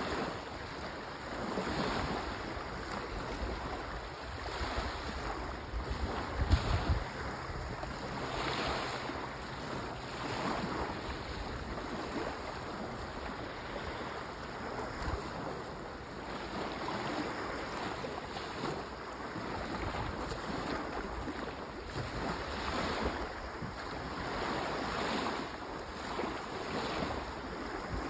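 Small sea waves lapping and washing up onto a sandy shore, the wash swelling and easing every few seconds. Wind rumbles on the microphone, with one brief loud buffet about six seconds in.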